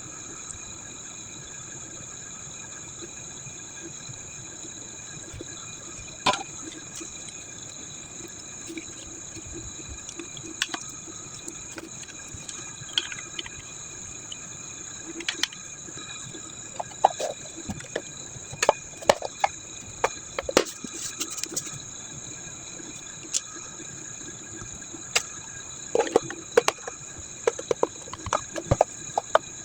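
A steady hiss with faint high whining tones, over which come scattered sharp clicks and light knocks, sparse at first and then coming in quick clusters in the second half.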